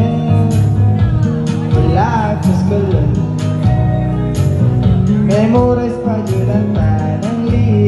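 A man singing a song into a microphone through PA speakers, backed by guitar and a steady drum beat.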